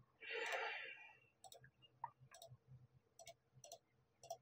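Computer mouse clicking faintly, a scattered run of single clicks, as menu items are picked. A short, soft breathy hiss comes first, in the opening second.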